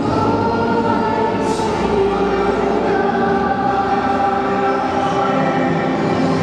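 Choral music: voices singing long, held notes, the music for a skating routine.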